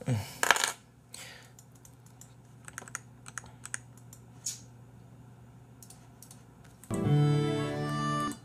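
A brief louder clatter at the start, then scattered key clicks on a computer keyboard. Near the end comes about a second and a half of short pitched electronic music, changing notes in steps.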